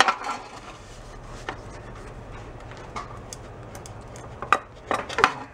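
Light knocks and clicks of a Honda Trail 70's metal fender being handled and flexed on a workbench to work out a dent: a few scattered taps, then a cluster of louder ones near the end.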